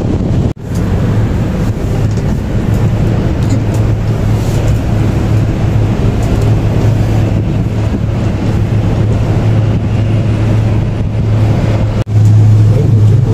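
Steady rumble with a low hum of a moving vehicle, heard from inside it. The sound drops out briefly about half a second in and again near the end.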